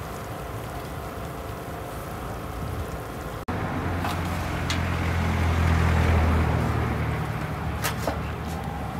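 Street background, with the low rumble of a motor vehicle's engine swelling and fading over a few seconds. A few sharp metallic clinks are heard, as of steel plates being handled.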